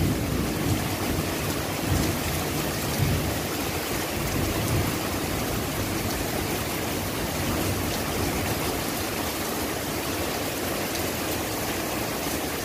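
Steady rain falling, with a low rumble of thunder fading away over the first few seconds.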